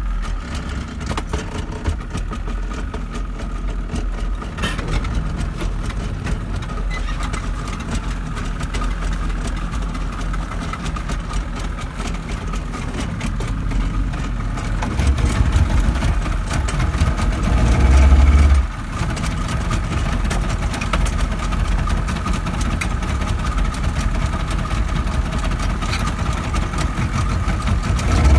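Twin outboard motors on a small speed boat idling steadily, a low running hum. A few seconds past the middle a louder low rumble rises and then cuts off suddenly.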